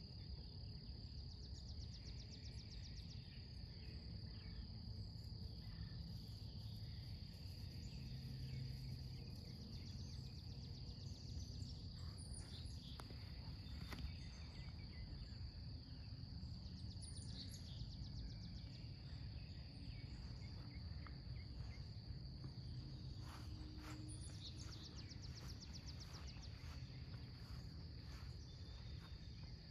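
Insects trilling steadily on one high pitch over faint low outdoor background noise, with a few short high chirps.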